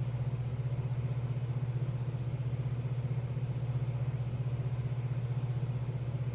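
Steady low machine hum with a fast, even pulsing.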